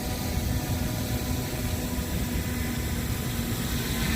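Strong wind buffeting the microphone in an irregular low rumble, over a steady low hum from the just-launched DJI Mini 3 Pro's propellers.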